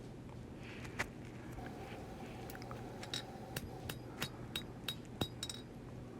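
Light hammer taps on hot W-2 steel bar stock on the anvil, each with a short metallic ring: one tap about a second in, then a run of about three taps a second from about three seconds in. The taps mark where the blade will end and the handle begin.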